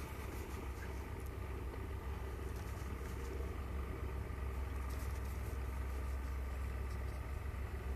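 Steady low background rumble with a faint hum, and a few faint clicks.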